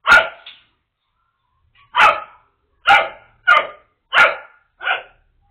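A dog barking: six short, sharp barks, one right at the start, then a run of five more from about two seconds in, about one every half second to second.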